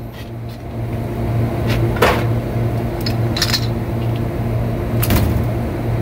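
A steady low machine hum, with a handful of sharp metallic clinks and knocks from hand tools on the blower's pulley and shaft. The loudest knock comes about two seconds in, and one clink rings briefly.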